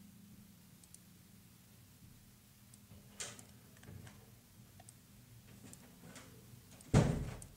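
A faint steady low hum with a few small scattered clicks, then one loud knock about seven seconds in that dies away quickly.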